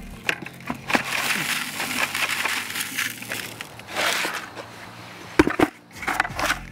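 Dry powdered Perma Edge edging mix poured from one plastic bucket into another: a rushing hiss of falling powder for about three and a half seconds, then a few sharp knocks about five and a half seconds in.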